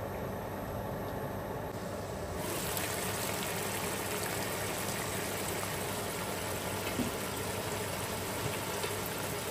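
Mutton in onion-tomato masala and hot water, simmering in a pot to tenderise, with a steady bubbling hiss. About two and a half seconds in the sound turns brighter and a little louder.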